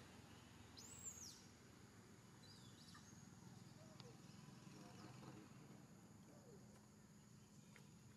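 Near silence: faint outdoor ambience with a few faint high chirps, the first, an arching one, about a second in.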